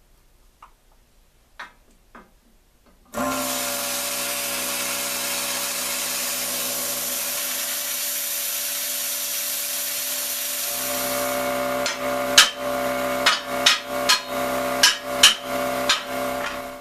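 Hobart Airforce 250ci plasma cutter with built-in air compressor switching on about three seconds in and cutting through lawn-tractor frame steel: a steady hiss over a hum of several steady tones. From about twelve seconds in, a series of sharp knocks of hammer blows on the steel frame sounds over the cutter's continuing hum.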